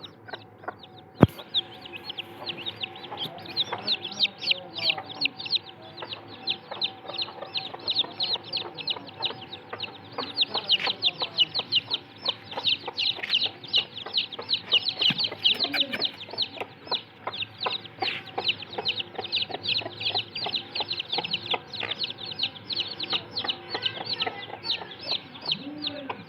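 A flock of chickens calling, a dense, continuous chatter of short high-pitched chirps over lower clucks, with one sharp click about a second in.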